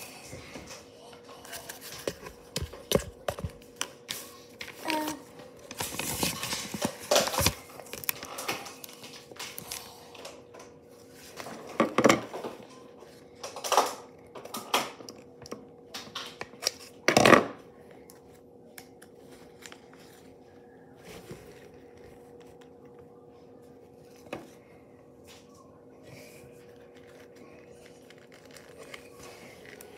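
Paper being handled on a tabletop: a run of rustles, crinkles and small knocks, loudest about twelve and seventeen seconds in. After that it is mostly quiet apart from a faint steady hum.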